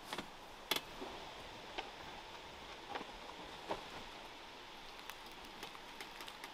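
Woodland ambience: a soft steady hiss with irregular light ticks and taps, the sharpest one just under a second in.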